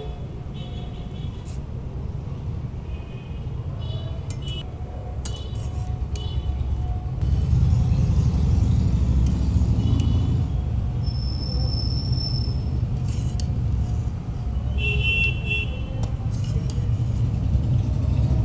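Steady low rumble of road traffic, louder from about seven seconds in, with short high-pitched beeps or toots now and then.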